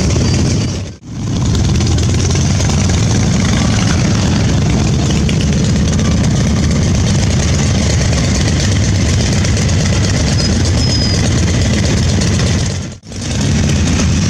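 A column of motorcycles, cruisers and adventure bikes, riding slowly past close by, their engines running in a steady low drone. The sound drops away briefly twice, about a second in and near the end.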